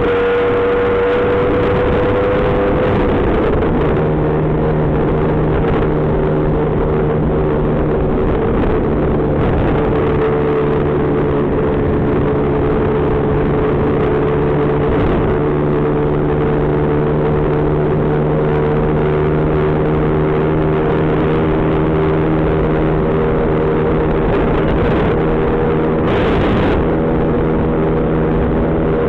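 Lambretta scooter's single-cylinder two-stroke engine running under way, with wind noise over the microphone. The engine note steps down in pitch about three seconds in and then holds steady, with a brief rush of noise near the end.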